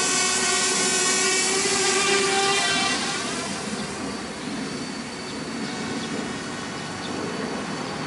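Parrot Bebop quadcopter's propellers whining at a steady pitch, which drops to a quieter, softer whir about three seconds in.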